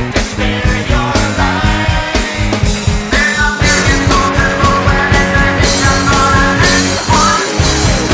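Rock song played by a full band of drums, bass, guitar and keyboards, with a fast, steady beat.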